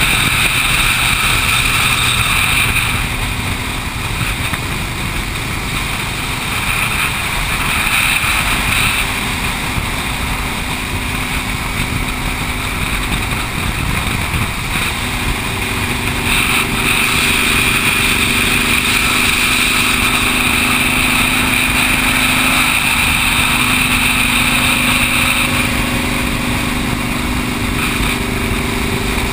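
Motorcycles cruising at highway speed, heard from a camera on a moving bike: a steady engine drone under constant wind and road rush. About halfway through, a steadier engine hum comes in as other bikes ride close alongside.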